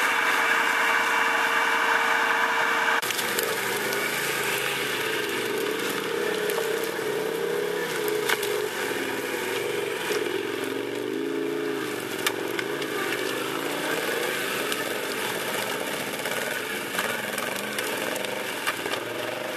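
ATV engine running at steady, high revs, then about three seconds in switching abruptly to lower revs that rise and fall unevenly. A few sharp cracks are heard over the engine.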